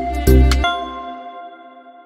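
Background music: a last beat over deep bass about half a second in, then a held chord that rings on and fades away.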